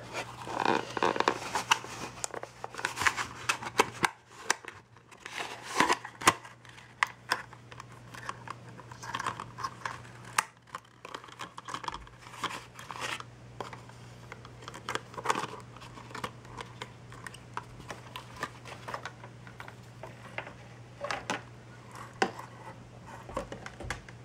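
Hands handling a mini quadcopter and its clear plastic packaging: irregular crinkles, rustles and small plastic clicks, busiest in the first half and thinning out later, over a faint steady low hum.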